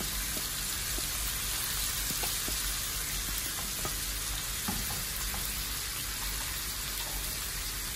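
Whole chicken frying in butter in a nonstick wok: a steady sizzle with a few faint crackles.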